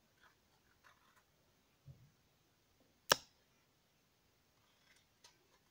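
Kitchen knife peeling a mango by hand: faint scraping and small ticks of the blade on the fruit's skin, with one sharp click a little after three seconds in.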